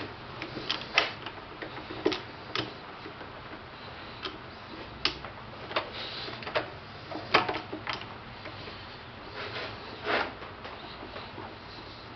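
Irregular metal clicks and knocks as a Sieg 7x10 mini lathe is handled with its spindle stopped: the tool post being set and the three-jaw chuck turned by hand. A faint low steady hum lies under them.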